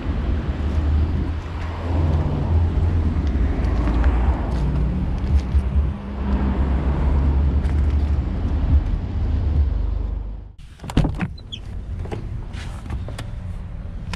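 Car running, with a steady low engine and road rumble. About ten and a half seconds in it stops abruptly, leaving a quieter background with a few clicks and knocks.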